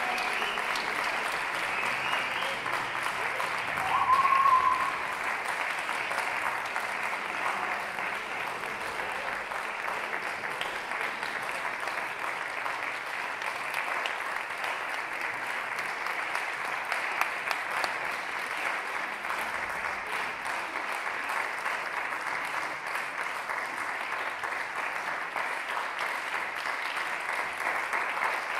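Concert-hall audience applauding steadily, with one short whistle about four seconds in.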